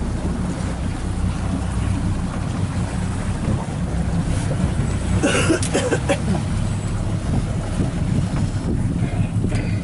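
Motorboat engine running steadily under way, with wind on the microphone. A short louder burst of noise about halfway through.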